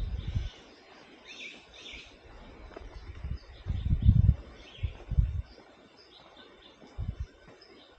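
Small birds chirping with short high calls scattered throughout. Several low rumbles on the microphone cut across them, the loudest lasting most of a second about four seconds in.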